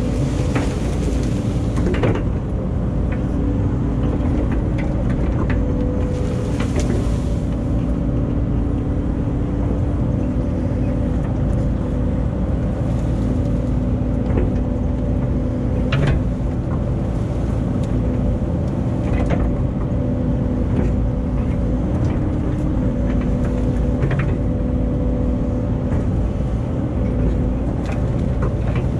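CAT 308 excavator working, its diesel engine running steadily under load with a steady hydraulic whine, and a few sharp knocks scattered through.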